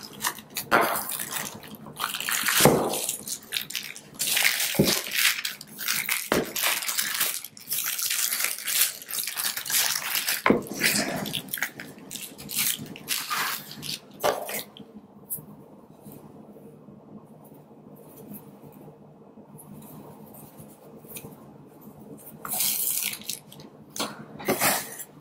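Plastic wrapping crinkling and rustling as a wrapped speaker is lifted from its cardboard box and handled, with a few knocks from the packaging in the first half. The rustling dies down for several seconds past the middle and starts again near the end.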